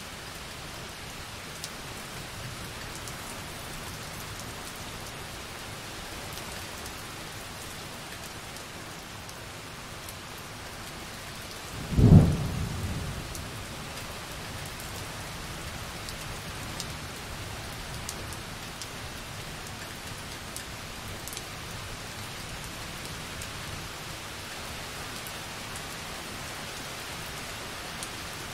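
Light, steady rain falling on a window glass, with faint drop ticks. About twelve seconds in, a single thunderclap breaks in suddenly and loudly, then rumbles away over a couple of seconds.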